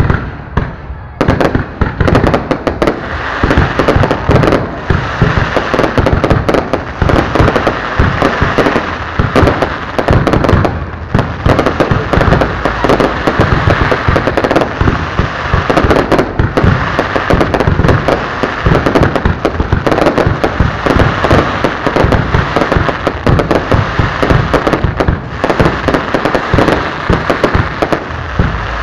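Fireworks display going off in a continuous, rapid barrage: many loud, sharp bangs a second, overlapping without a break.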